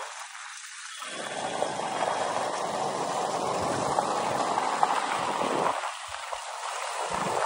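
Wind rushing over the microphone on a moving motorcycle, an even rushing noise that swells about a second in and eases near the end, with a low bump just before the end.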